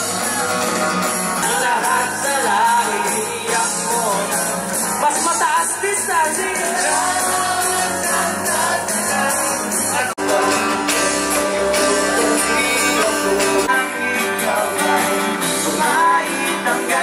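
Live rock band music with singing over amplified instruments. About ten seconds in, the sound drops out for an instant and a different passage starts.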